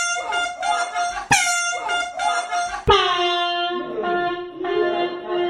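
Compressed-air horn rigged to an office chair blaring in repeated loud blasts, each starting abruptly. One is already sounding at the start and a second begins about a second in. A third, about three seconds in, holds on with a lower second tone beneath it.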